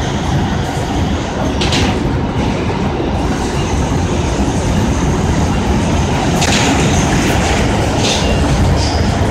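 Inside an R160 subway car in motion: a steady loud rumble of wheels on rails. Brief sharper noises come through about two seconds in and twice more near the end.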